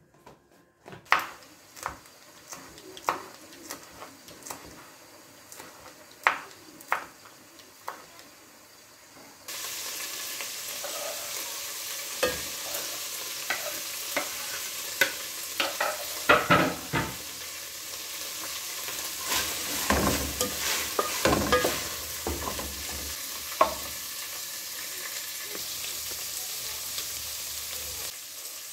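A few sharp clicks and knocks as a blender cup is handled. Then, about nine seconds in, steady sizzling starts suddenly: diced meat frying in an aluminium pot, stirred with a wooden spoon that scrapes and knocks against the pot.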